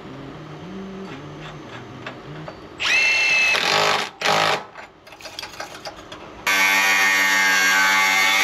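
Angle grinder spinning up in a short burst and a second brief burst, then running steadily for about two seconds as it cuts through steel.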